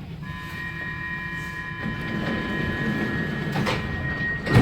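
Stockholm metro train running: a steady rumble from the car with a steady high-pitched whine of several tones over it, growing louder partway through, and a sharp loud thump near the end.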